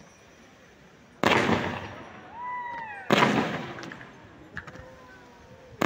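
Fireworks display: two loud aerial shell bursts about two seconds apart, each a sudden bang that fades away over a second or so.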